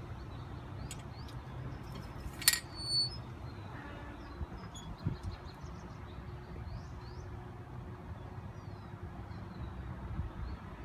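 Ambient street sound: a steady low rumble of distant traffic with faint, short bird chirps, and one sharp click about two and a half seconds in.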